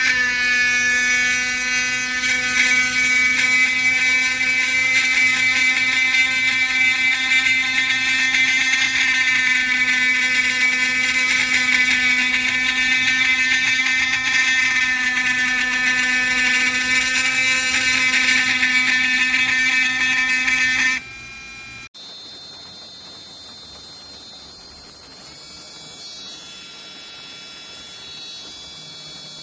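Cordless rotary tool running at a steady speed, a high motor whine that holds one pitch for about twenty seconds, then stops abruptly. A much quieter hum follows.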